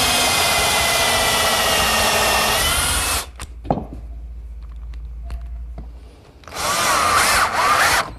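Electric drill running at full speed as it pre-drills a hole, its pitch sagging slightly under load before it stops about three seconds in. After a pause with a few small knocks, the drill runs again for about a second and a half, its pitch dipping and rising as the load changes, as when driving a screw.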